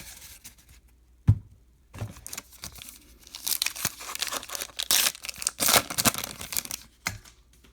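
A baseball card pack's wrapper being torn open and crinkled, in irregular rustling bursts for several seconds. A single sharp tap comes about a second in.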